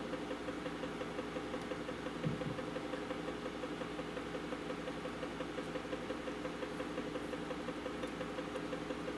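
Steady hum of a small electric motor, a low buzz made of several fixed tones, with a soft low bump about two seconds in.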